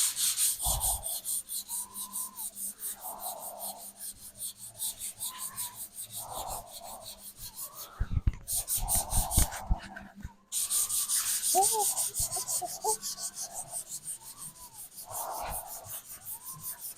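120-grit sandpaper rubbed dry over a car body panel in quick, even back-and-forth strokes, knocking the surface down to show the low spots. The strokes stop briefly twice around the middle.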